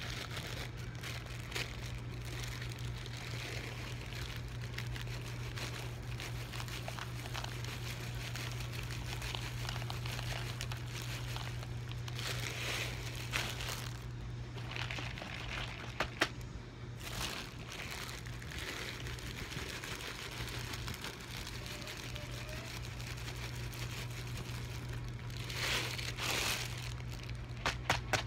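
Clear plastic bag of dry cat food crinkling and rustling as it is handled and repacked, with louder stretches and a few sharp clicks, over a steady low hum.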